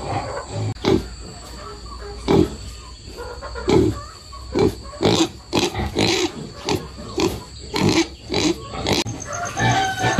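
Pigs grunting and squealing in short, repeated calls, sparse at first and then coming about twice a second in the second half.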